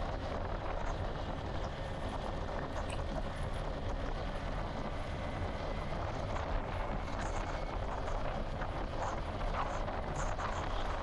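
Motorcycle engine running steadily while under way, with an even rushing noise of wind and road over it.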